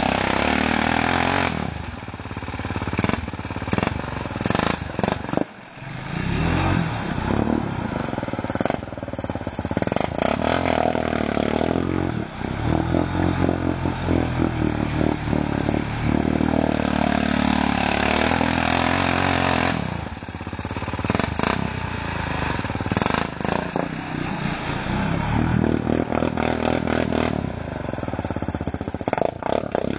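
ATV engine revving up and down over and over, labouring as it churns through deep mud and water, with a brief lull about five seconds in.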